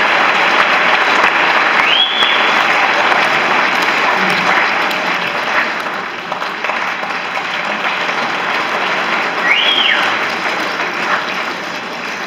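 Audience applauding after a dance number. Two high whistles, rising then falling, cut through the clapping about two seconds in and again near ten seconds. The clapping thins out a little toward the end.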